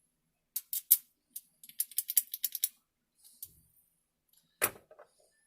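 Sharp clicks of metal driver bits and a magnetic bit sleeve being handled and fitted together: three clicks, then a quick run of about ten, and one louder knock near the end.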